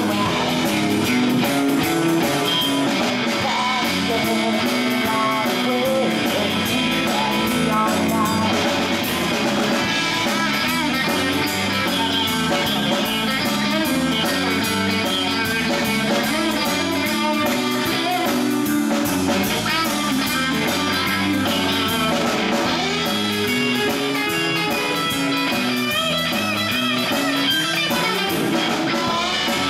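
Live rock band playing: electric guitar, electric bass and drum kit, steady throughout.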